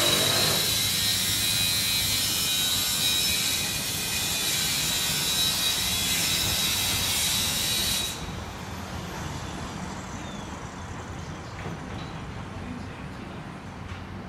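Angle grinder cutting metal: a steady, high grinding hiss with a thin whine in it, which stops about eight seconds in, leaving quieter street noise.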